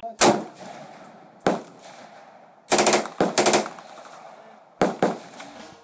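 Rifle shots: a single shot, another about a second later, then a rapid string of several shots around three seconds in, and two more close together near the end, each followed by a short echo.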